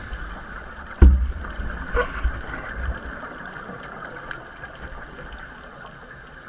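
Muffled underwater sound picked up by a camera in its waterproof housing: a sharp thump about a second in, about two seconds of low rumbling and gurgling, then a faint steady hiss with a few light ticks.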